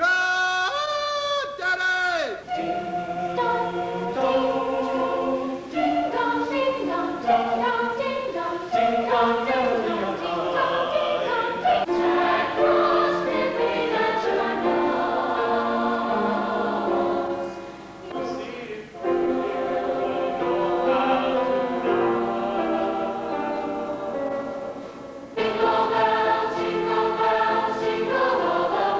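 A choir singing in harmony, holding long chords. The singing drops away briefly about two thirds of the way through, then comes back in fuller near the end.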